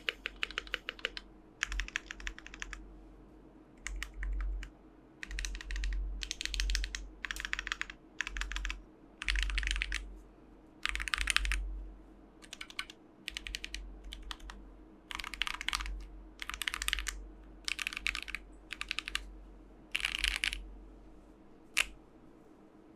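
Typing on a Keychron Q3 mechanical keyboard with Momoka Shark tactile switches and PBT keycaps: short runs of quick keystrokes with brief pauses between them, ending on one single key press near the end.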